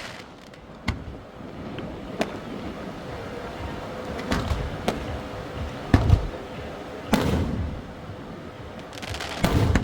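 Aerial fireworks bursting: about seven booms and cracks at uneven intervals, the loudest about six and seven seconds in, some trailing off in a rumble.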